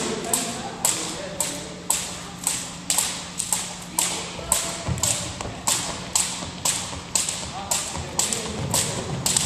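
Long jump ropes being turned, slapping the gym floor in a steady rhythm of about two slaps a second.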